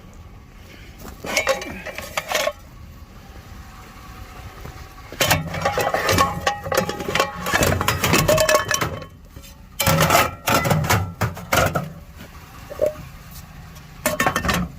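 Aluminum pots and pans clanging and clattering as they are shoved into a load of scrap, in several irregular bursts of metal banging.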